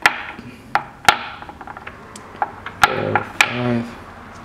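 Primed brass rifle cases clicking and knocking as they are set one by one into a plastic loading block: a handful of sharp, separate clicks spread over a few seconds.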